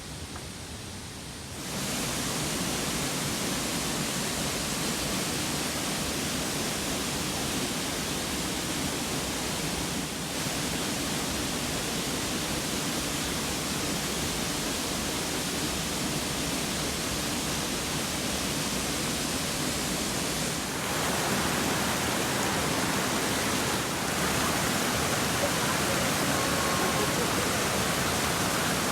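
Waterfall: a steady rush of falling water, growing louder in a few steps, about two seconds in and again near the end.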